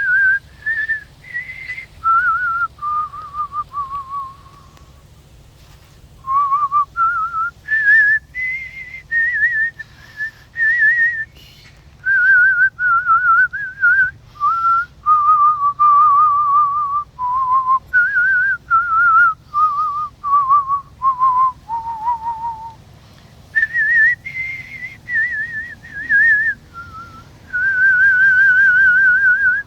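A person whistling a tune by mouth. Single clear notes with a wavering vibrato step up and down in short phrases, with a couple of brief breaks and one long, wavering held note near the end.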